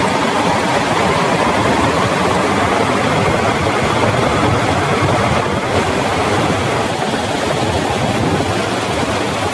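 Heavy rain falling steadily, a dense, even hiss, a little softer in the last few seconds.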